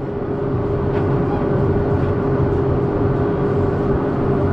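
Tractor engine running steadily under load, heard from inside the cab: an even low hum with a constant whine above it.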